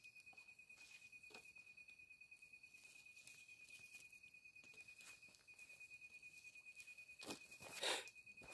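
Faint handling sounds: a net bag rustled and shaken out over a banana leaf, with light scattered patter, then a louder rustle and footsteps on soil near the end. A thin, steady, pulsing high trill runs underneath.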